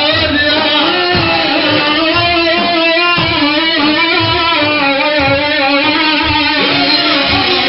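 Devotional music: a melody of long, wavering held notes over steady low drum beats.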